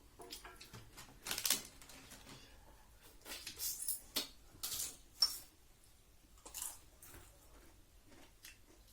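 Close-up eating sounds: irregular wet mouth smacks and slurps of someone eating a rice and curry meal, with a sharp click a little after five seconds in.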